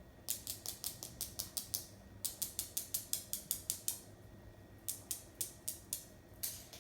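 A dog's claws clicking on a hard kitchen floor as she picks her way through an obstacle course. The clicks come quick and even, about five or six a second, in three runs with short pauses between.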